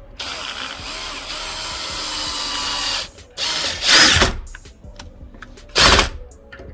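Power drill running steadily for about three seconds, then two short, louder bursts of the drill.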